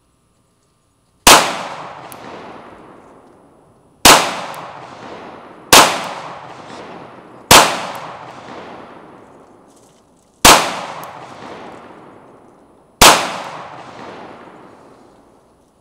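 Six single shots from an FN 509 Tactical 9mm pistol, fired one at a time one to three seconds apart, each sharp crack followed by a long echo trailing off.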